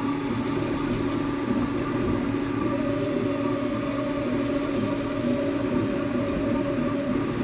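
3D printer's stepper motors running, a steady whine of several tones that step to new pitches as the moves change.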